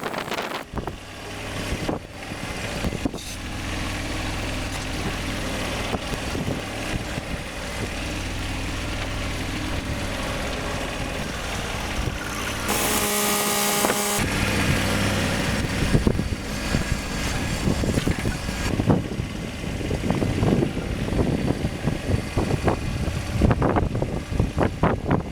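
John Deere 1025R compact tractor's three-cylinder diesel engine running steadily under load while it pushes snow with the loader bucket. About halfway through there is a brief whine with several overtones, lasting about a second and a half, and the sound turns rougher and more uneven near the end.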